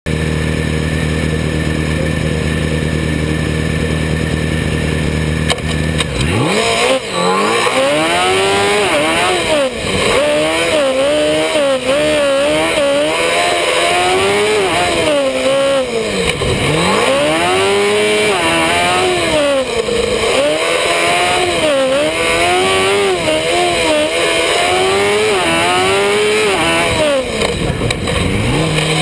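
Formula SAE race car engine heard from on board. It idles steadily for about six seconds, then revs hard, its pitch climbing and dropping again and again as the car accelerates and brakes through an autocross course.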